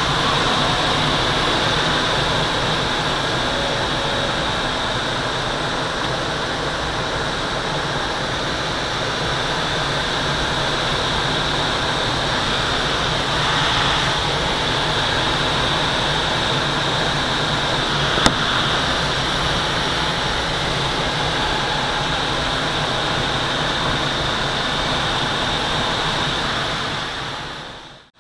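Steady rush of airflow over the canopy of a Twin Astir glider in flight, heard inside the cockpit, with a single sharp tick about 18 seconds in. The sound dips out to silence at the very end.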